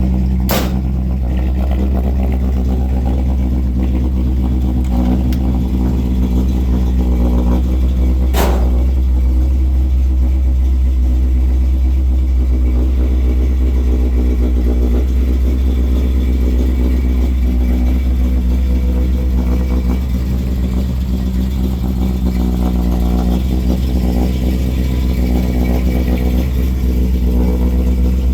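Built 327 small-block V8 of a 1964 Chevrolet Impala SS running steadily, with a deep low rumble. Two sharp clicks stand out, about half a second in and again some eight seconds later.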